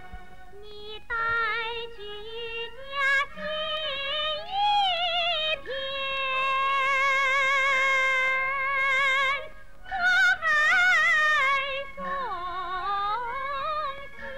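A woman singing a slow, drawn-out operatic line in a high voice with strong vibrato, sliding between notes and holding one long note in the middle, with a short break for breath near the end.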